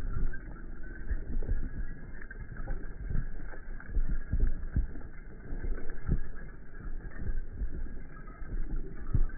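Horses galloping past on a dirt track, their hooves making irregular dull thuds over a low rumble.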